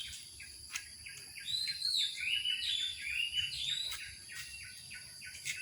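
Several birds chirping and singing in short, quickly repeated notes, with a steady high-pitched whine underneath.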